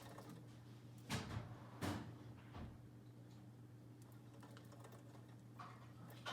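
Kittens moving about: a few light knocks and scuffs, about a second in, again near two seconds and near the end, over a steady low hum.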